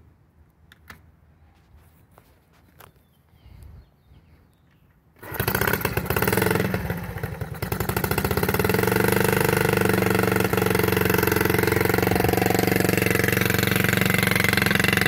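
A few faint clicks, then about five seconds in a 1971 Honda Z50's 49 cc four-stroke single-cylinder engine catches on the first kick from a cold start on choke. It wavers for a couple of seconds, then runs steadily at a fast idle.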